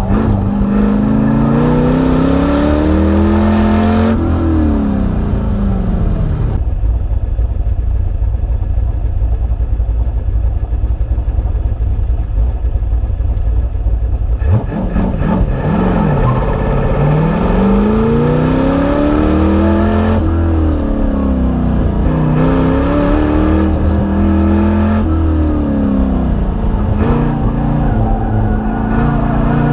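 Car engine heard from inside the cabin on an autocross run, its pitch repeatedly rising and falling as it accelerates and lifts between cones. Around the middle it settles to a low steady rumble, then launches and revs up and down again.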